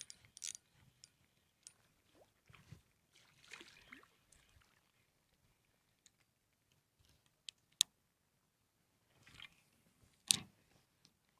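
Hands working a spinning rod and reel: scattered rustles and small clicks, with a sharp click about three and a half seconds before the end and a louder one near the end.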